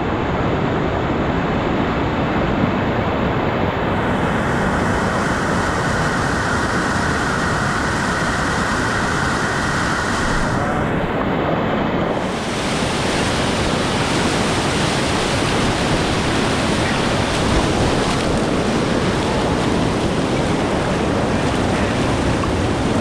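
Loud, steady rush of river whitewater rapids. The upper hiss grows brighter about four seconds in, dips briefly, and comes back fuller about twelve seconds in.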